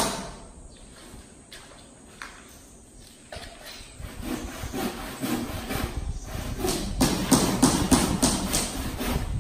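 Hand saw cutting a wooden post, starting about a third of the way in and building into quick, even back-and-forth strokes that grow louder near the end.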